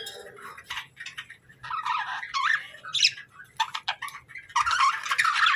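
Small cage birds chirping and chattering in quick, warbling calls, thickest near the end.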